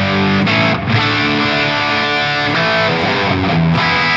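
Fujigen electric guitar played through the Valeton GP200R multi-effects processor's factory preset: loud, distorted chords ringing out, a high-gain drive suited to metal. The chords break and are struck again about a second in and near the end.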